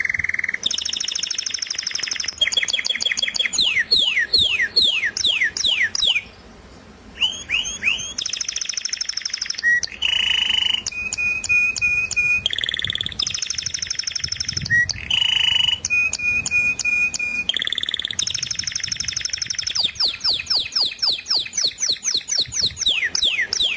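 Small songbird singing a long, fast song of rapid trills and repeated chirps that switches from one phrase to the next every second or two, with a brief pause about six seconds in.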